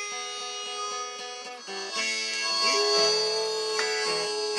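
Brindle dog howling along to a blues jam, one long held note that slides up about two and a half seconds in and holds to the end, over sustained instrumental chords.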